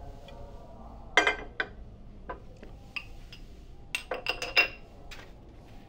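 Ceramic plates and glasses clinking and knocking as a restaurant table is cleared: a few separate clinks, then a quick run of them about four seconds in, over a low room hum.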